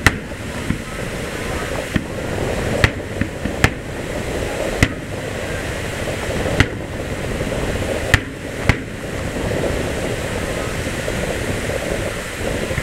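Aerial firework shells bursting: about seven sharp bangs at irregular intervals, a second or two apart, over a steady low background noise.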